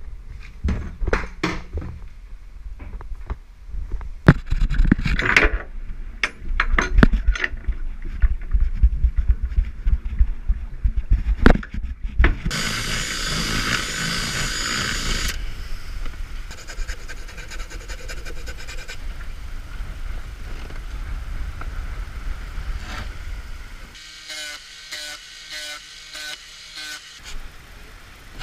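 Hand-tool repair work inside a carbon sailing yacht's hull: a string of knocks and clicks over a low rumble, a few seconds of harsh hiss, then rhythmic back-and-forth sawing or rasping strokes near the end.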